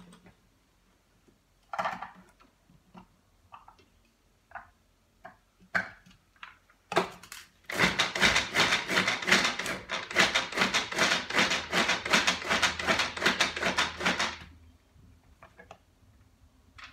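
A few scattered knocks and taps, then a hand-cranked manual food processor being turned quickly for about seven seconds, chopping onion with rapid, evenly repeated clicking. The clicking stops sharply about fourteen seconds in.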